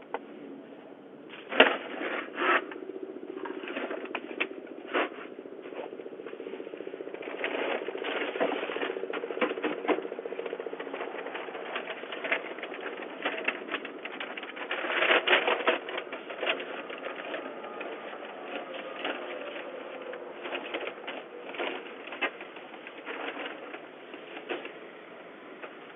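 Doorbell camera microphone audio: irregular clicks and knocks, a denser cluster about fifteen seconds in, over a steady low hum, all sounding thin and tinny.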